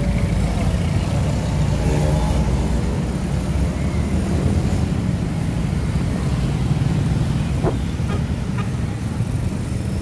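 Road traffic: cars and motorbikes passing on a busy street, a steady low engine rumble.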